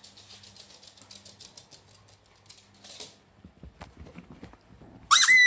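A small dog's claws clicking quickly on a laminate floor as it runs, followed by a few soft knocks and rustles on bedding. Near the end there is a short, loud, high-pitched squeak.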